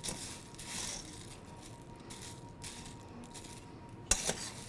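Crispy rice cereal squares being stirred in a metal skillet, giving soft scraping rattles, with one sharp knock about four seconds in.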